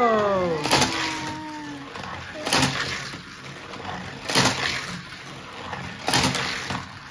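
Sharp plastic clacks from a toy race-car track set with die-cast cars, about one every two seconds at an even pace.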